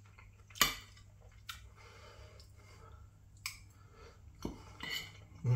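Cutlery clicking against a food tray about five times, the first click about half a second in the loudest, with quiet chewing between. A short hummed "mm" of approval comes right at the end.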